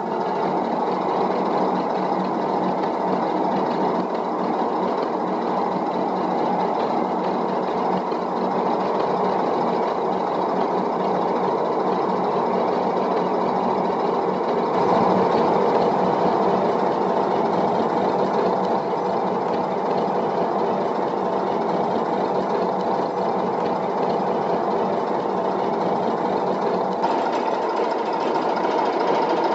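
Narrowboat's inboard diesel engine running steadily, with a rapid even chugging. It gets a little louder about halfway through.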